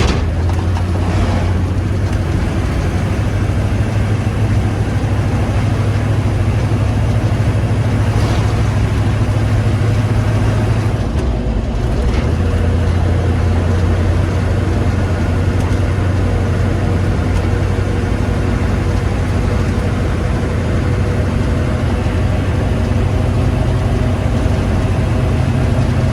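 HMMWV (Humvee) V8 diesel engine running on the road, a steady low drone that dips briefly about eleven seconds in before settling again.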